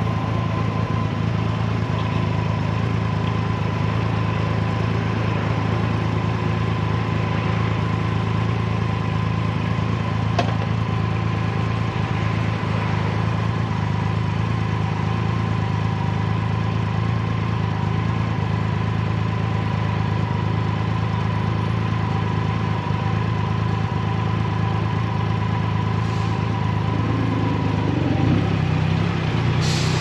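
Triumph Rocket 3's inline three-cylinder engine running steadily at low revs, idling while the bike waits in traffic. Near the end a second, deeper engine note joins in.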